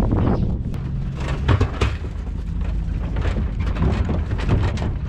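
A farm vehicle's engine running steadily while driving over snow, with irregular knocks and rattles from the metal tub and load. The loudest knocks come about one and a half seconds in.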